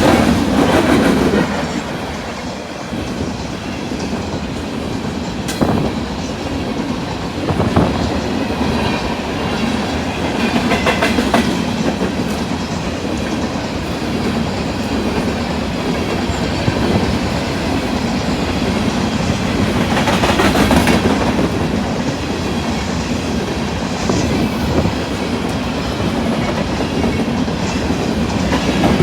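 Freight train cars rolling past, a steady rumble with the wheels clacking over rail joints, swelling louder about twenty seconds in.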